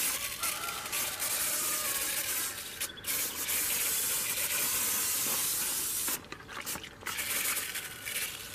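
Hand-pump garden pressure sprayer hissing as it puts out a fine mist of diluted pesticide. The spray breaks off briefly about three seconds in and again a little past six seconds, and is weaker near the end.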